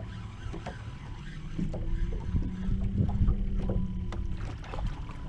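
Water lapping against the hull of a small boat on open sea, with wind rumbling on the microphone. A steady low hum joins in about a second and a half in and fades near the end.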